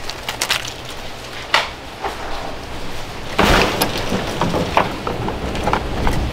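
Crinkling plastic parts bag and small handling clicks, then a truck door unlatched and swung open about three and a half seconds in, followed by a few light knocks.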